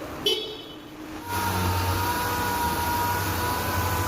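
A short sharp click about a quarter second in. About a second and a half in, a motor starts and runs steadily with a low hum and a steady high whine.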